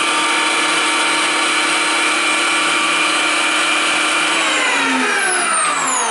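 Bosch electric meat grinder running steadily while grinding tomatoes. It is switched off about four seconds in, and its motor whine falls in pitch as it spins down.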